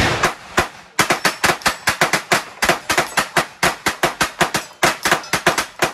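Hand-cranked replica M1862 .58-calibre Gatling gun firing a rapid string of shots, about five a second, after a single opening shot.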